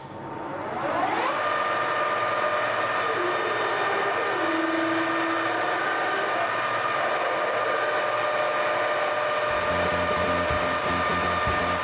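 Metal lathe spinning up with a rising whine over the first second, then running at a steady pitch while a twist drill bores into a large block of aluminium. A deeper rumble comes in near the end.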